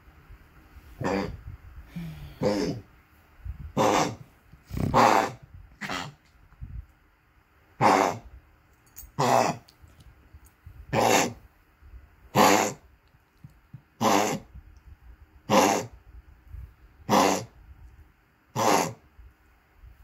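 Small Chihuahua-type dog coughing in a long unbroken bout, one short hack roughly every second and a half.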